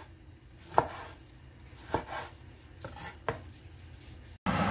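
Chinese cleaver slicing a tomato and knocking on a bamboo cutting board: several separate sharp chops about a second apart. Near the end the sound cuts off and a steady rush of noise begins.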